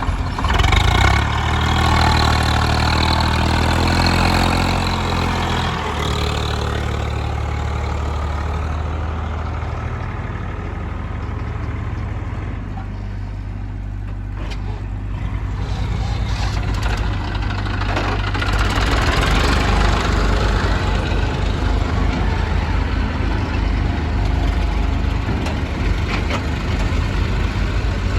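Heavy diesel machinery engine running under load. It revs up over the first few seconds and eases back to a steady run, and about two-thirds of the way through a rush of hissing noise swells for a few seconds.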